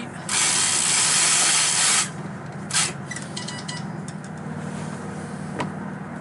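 Sailboat mainsheet rope pulled quickly through a cabin-top winch and rope clutch, a rushing hiss of about a second and a half. A few light clicks follow in the middle, then a single tick near the end.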